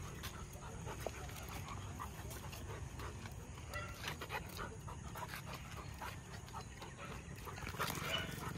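A boxer and stray dogs roughhousing at close range: faint dog sounds with scattered light scuffs and clicks, and no loud barking.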